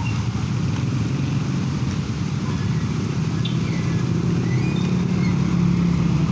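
Street traffic on a wet road: motorcycle and motorcycle-tricycle engines running nearby with tyre hiss, the engine hum growing a little louder in the second half.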